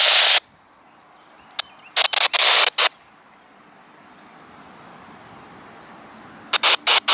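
Radio scanner static that cuts off sharply just after the start. A few short hissing bursts follow about two seconds in, and near the end a rapid run of choppy bursts as the squelch opens and closes.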